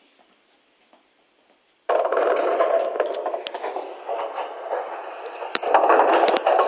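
After a near-quiet start, music for dancing starts abruptly about two seconds in and plays loud. Two sharp knocks sound near the end.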